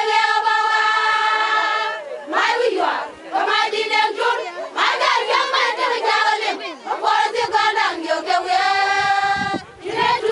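A group of women singing together in unison, high voices holding long notes in phrases of a second or two, with short breaks between phrases.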